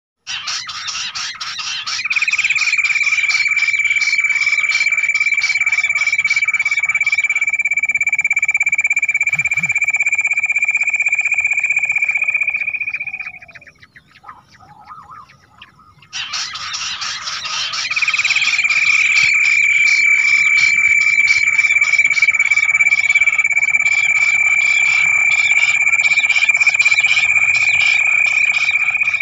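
Bush quail call played as a hunting lure: two long bouts, each a rapid pulsing trill with a steady high whistle held over it, separated by a short pause about halfway.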